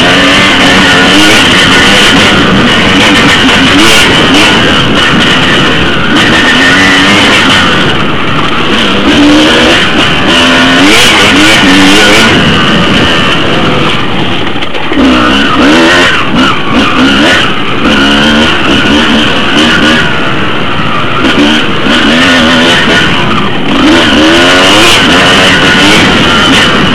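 Off-road motorcycle engine, loud and close, revving up and eased off again and again as the bike rides a rough trail, with wind rush and rattles from the jolting over the ground.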